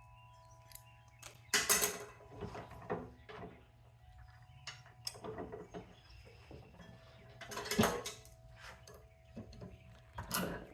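Electrical plugs being twisted and snapped apart to free their metal prongs: a series of sharp snaps, clicks and clatters, the loudest nearly eight seconds in, over a steady low hum.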